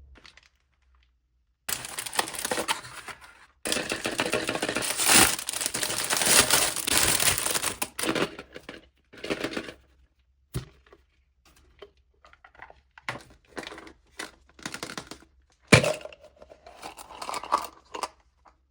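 Wrapping on a giant surprise egg being torn and crinkled off. A long stretch of continuous tearing gives way to shorter rustles, with two sharp clicks in the second half.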